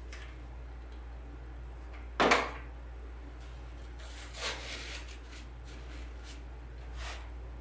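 A hot glue gun is set down on a wooden worktable with a single loud clunk about two seconds in. Softer handling knocks follow as a small foam pumpkin is pressed into place, over a steady low hum.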